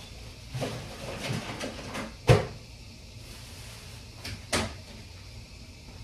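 Knocks and clatter, then a sharp bang a little over two seconds in and a second bang about four and a half seconds in: doors being opened and shut in a home.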